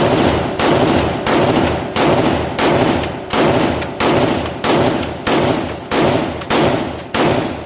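AR-10 rifle fired in a steady semi-automatic string, about a dozen shots roughly two-thirds of a second apart, each with a short echo tail, ending just before the end.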